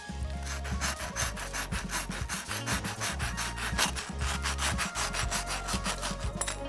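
A long knife sawing back and forth through the crust of a baked loaf cake to trim off its domed top: a rapid, repeated rasping scrape starting about half a second in.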